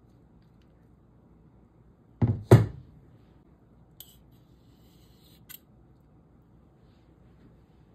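Two heavy knocks close together a little over two seconds in, then two light clinks of metal spoons against the bowl around four and five and a half seconds in, as butter is scraped off a spoon onto boiled potatoes.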